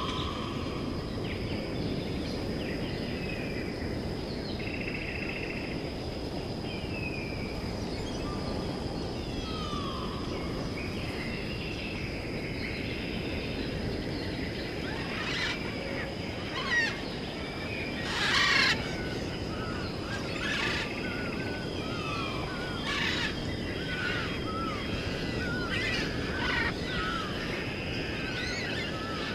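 Outdoor ambience: birds chirping and calling over a steady background rush, with a steady high-pitched whine and a few short harsh sounds, the loudest about 18 seconds in.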